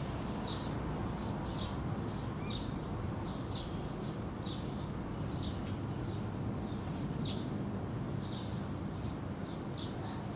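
Small birds chirping in quick, high-pitched chirps, two or three a second, over a steady low hum.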